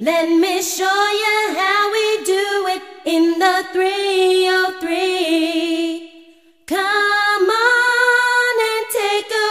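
Opening of a hip-hop track: a singing voice with no beat or bass under it, holding long notes, with a brief break about two-thirds of the way through.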